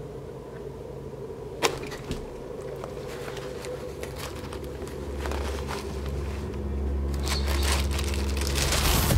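Hands rummaging through a purse: a sharp click about two seconds in, then rustling and crinkling of a small plastic bag that grows busier toward the end, over a low steady hum that swells near the end.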